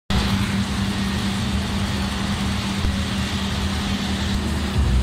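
Steady mechanical hum with a constant low tone and rumble under the even background noise of a busy exhibition hall.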